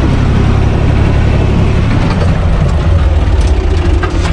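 U445 DT 4x4 tractor's diesel engine running loud and steady, heard from inside the cab, its low note shifting about halfway through.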